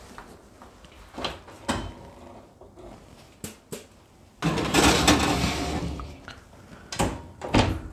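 A Siemens oven door being opened with clicks and knocks, a metal baking pan slid scraping onto the oven's wire rack as the loudest sound, then a couple of knocks near the end as the door is pushed shut.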